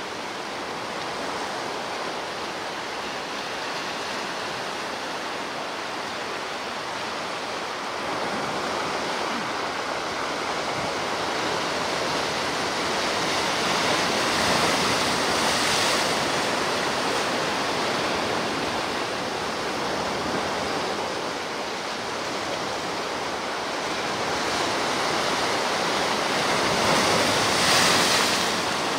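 Ocean surf washing on the shore: a steady rush of waves that swells twice, about halfway through and again near the end.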